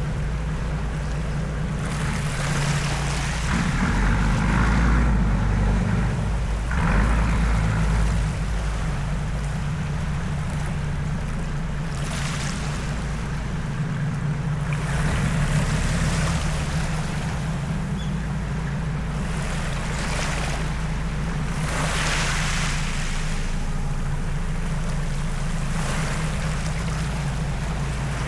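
Tour boat's engine running steadily with a low hum, while water rushes and splashes along the hull in recurring swells.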